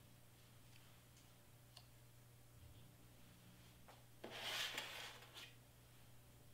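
Near silence with a faint steady low hum. About four seconds in comes a brief rustle of cardstock pieces being handled, with a few faint ticks earlier.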